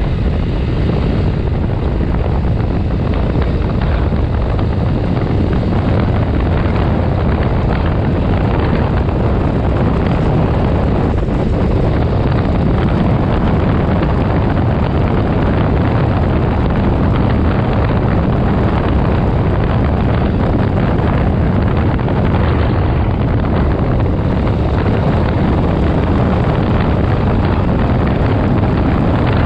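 Heavy wind noise buffeting the microphone of a handlebar-mounted action camera on a moving motorcycle: a steady, dense rumble.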